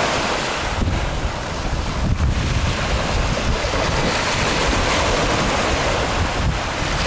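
Gentle surf washing in on a beach, a steady rush of breaking waves, with wind buffeting the microphone in uneven rumbles.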